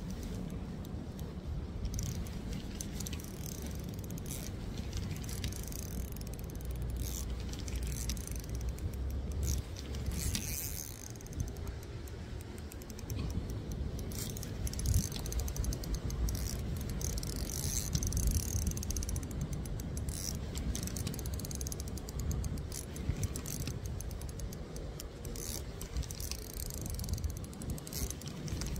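Fishing reel being cranked in spells, a fast run of small clicks from its gears, over a low rumble.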